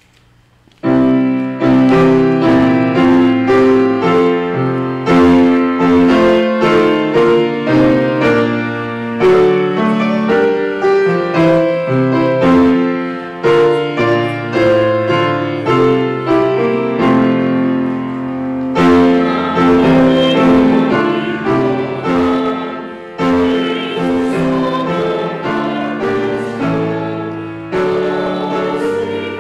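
Grand piano playing a piece of many struck notes, starting about a second in.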